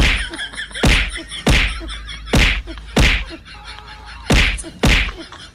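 Tennis ball struck back and forth in a rally, heard through a television's sound: seven sharp hits about a second or less apart, with a longer pause after the fifth.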